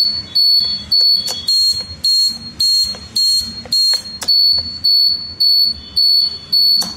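Indicator buzzer on an electric scooter's turn-signal circuit beeping in time with the flasher: a loud, high-pitched beep about twice a second, stopping near the end. The beeping shows the newly fitted buzzer is wired to the indicator and working.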